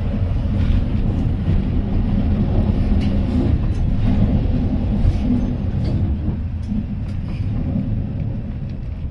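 Heritage electric tram running along the line, heard from on board: a steady low rumble of wheels on rail and running gear with a few light clicks, easing off slightly near the end.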